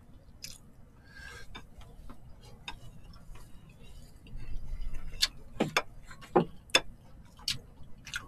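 Scattered light clicks and taps of chopsticks and a spoon against bowls and takeout containers while eating, a dozen or so separate ticks, thicker in the second half.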